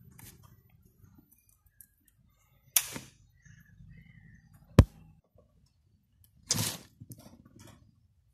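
Sharp electrical snaps from a homemade xenon ring-flash circuit: one crack with a short tail, a louder, sharper snap about two seconds later, then a brief crackle near the end, as the charged capacitor discharges while the trigger leads are brought together.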